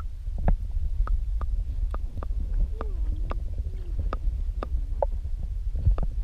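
A steady low rumble with many small scattered clicks and taps through it, and a few faint wavering tones in the middle.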